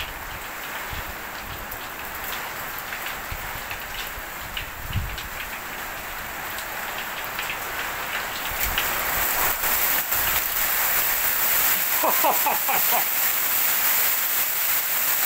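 Hail and heavy rain pelting a porch roof, a dense steady patter of many small hits. It swells louder and sharper about halfway through, building to a deafening din by the end.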